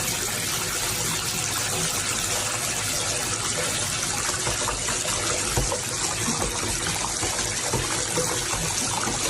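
Water running steadily: a continuous rushing hiss.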